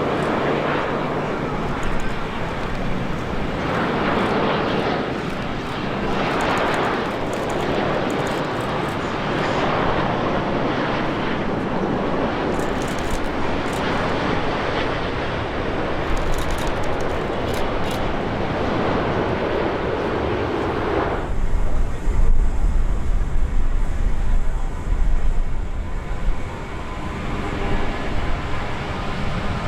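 Jet airliner engines: a broad, loud rush that swells and fades several times. About two-thirds of the way through it cuts off abruptly, leaving a low uneven rumble.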